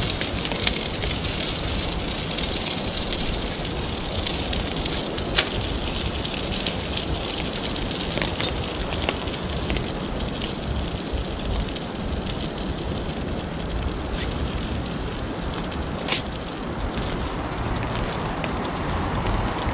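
Steady rain falling on a tarp shelter and the wet woodland around it, with a few sharper drip taps, the loudest about sixteen seconds in.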